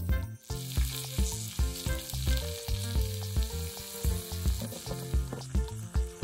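Raw potato fries sizzling in hot oil in a miniature wok; the sizzle starts about half a second in and then holds. Background music with a steady beat plays underneath.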